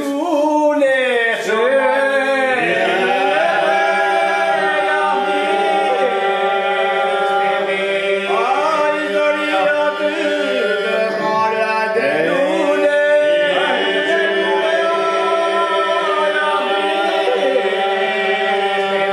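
Men's group singing an unaccompanied Albanian folk song: the group holds a steady drone while a lead voice carries an ornamented, wavering melody above it.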